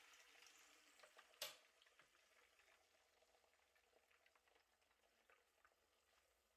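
Faint sizzling of food frying in a pan, fading over the first couple of seconds, with one sharp click about a second and a half in and light scattered crackles after.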